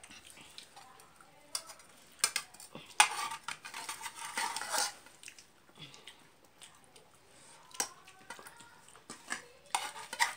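Eating by hand from a steel plate: fingers mixing rice against the metal, giving several sharp clicks and short scraping rustles, with chewing between them.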